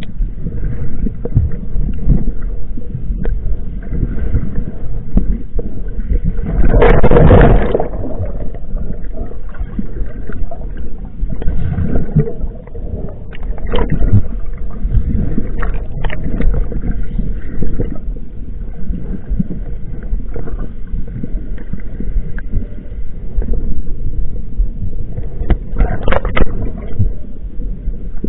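Steady low rumble of a boat under way, with water and wind noise on the microphone; a louder gust of noise comes about seven seconds in and again near the end.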